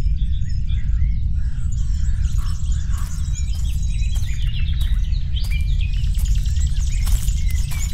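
Birds chirping and singing over a steady low rumble. From about halfway on, a run of sharp dry crackles joins in, footsteps through dry undergrowth.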